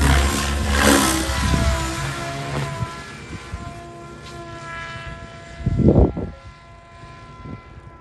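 Electric RC helicopter in flight, its rotor and motor whine fading as it flies farther off. A brief loud rush of noise about six seconds in.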